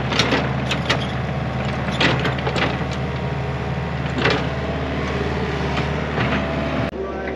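Mini excavator's diesel engine running steadily while the machine works straddling the trench, with occasional sharp clanks and knocks from the machine. The sound breaks off abruptly near the end.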